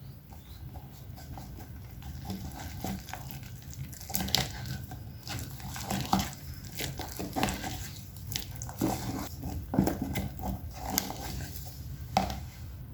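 Irregular clicks, taps and soft scrapes of a spoon and containers being handled while a sourdough starter is fed, over a steady low hum.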